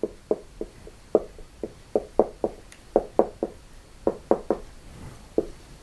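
Marker writing on a whiteboard: a quick, irregular series of short taps, about three or four a second, as the letters are stroked onto the board.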